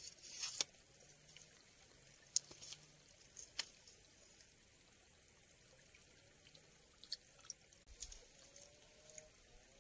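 Quiet riverbank ambience: a steady faint high-pitched whine, a few sharp clicks and light taps scattered through, and faint wavering animal calls near the end.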